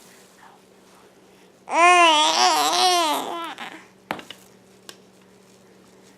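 A baby's warbling squeal lasting about two seconds, its pitch wobbling up and down, followed shortly after by a small sharp click.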